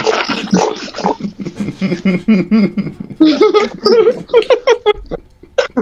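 People laughing loudly in quick bursts, turning to high-pitched squeals about three seconds in.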